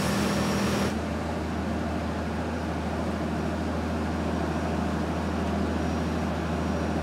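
Fishing boat's engine running steadily underway, a constant low hum under the rush of wind and water. About a second in the high hiss drops back and the hum carries on.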